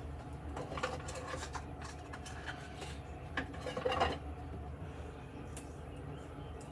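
Light clicks, clinks and short scrapes of shaving gear being handled, with the strongest about four seconds in, then it goes quieter.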